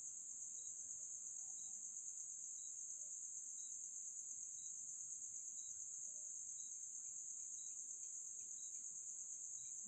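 Crickets trilling in a steady, unbroken high-pitched drone, with a faint tick about once a second.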